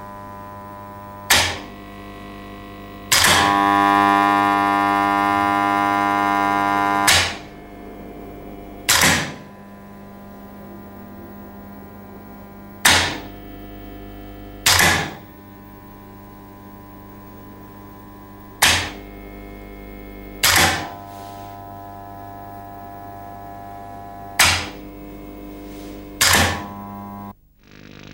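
Electronic soundtrack: a steady humming drone with sharp struck hits that come in pairs about two seconds apart, each pair repeating about every six seconds. After the second hit a louder, brighter chord swells in and holds for about four seconds, and the drone cuts off suddenly near the end.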